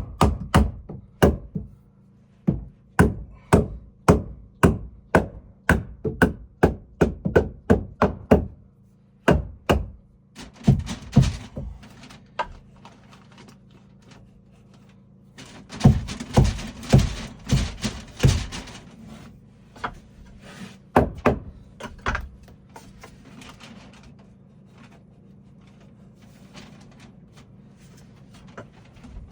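Hammer blows on wood, struck steadily about twice a second, then after a pause two shorter flurries of quicker strikes with a rasping noise under them, the second flurry the loudest; it quietens near the end.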